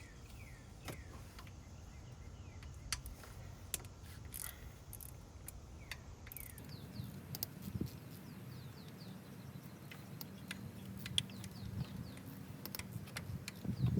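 Scattered metallic clicks and clinks of a 10 mm wrench or socket being worked on the engine, with small birds chirping in short falling notes in the background.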